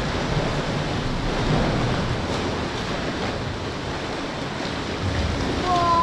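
Sea water sloshing against the rock walls of a sea cave around a moving boat, a steady noisy wash. Near the end a drawn-out falling tone begins.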